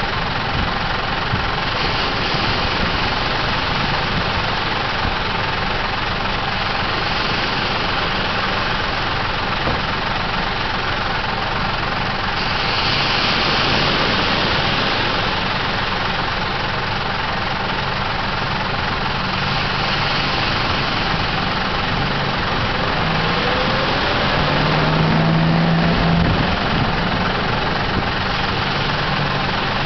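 Surf washing up the beach in swells every five or six seconds, over an engine running steadily; the engine grows louder and rises in pitch near the end.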